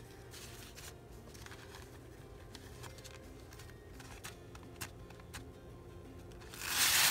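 Fingers picking at the corner of a thin paper napkin, with faint scattered small clicks, then a loud papery rustle near the end as the napkin's plies are pulled apart.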